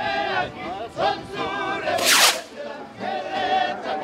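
A group of men singing together to guitars, voices holding and bending long notes. About halfway through a short, loud hiss cuts across the singing.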